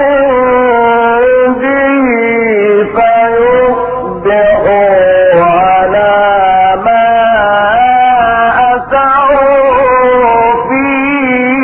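A man chanting Quran verses in the melodic, drawn-out recitation style, holding long notes and sliding them up and down through ornamented turns, with only short breaths between phrases.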